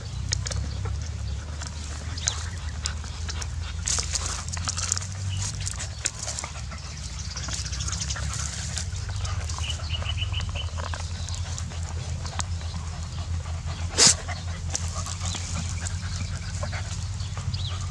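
Puppies gnawing and chewing on a dry palm frond stalk among dry palm leaves: scattered crunching, crackling and rustling clicks over a steady low rumble, with one loud sharp crack about fourteen seconds in.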